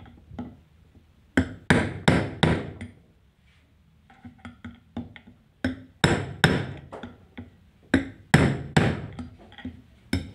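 Small hammer tapping a steel rod held against a ceiling fan's bearing, driving the rewound stator down onto it in the rotor plate. The rod is struck in runs of sharp metallic taps about a third of a second apart and moved between sides to seat the stator evenly, with a short lull of faint clicks in the middle.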